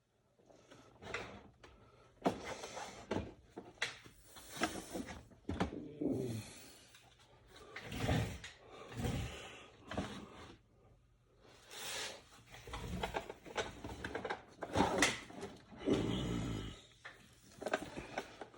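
Irregular handling sounds, rubbing, scraping and light knocks, roughly every second or two, as the parts of a muzzleloading rifle are cleaned.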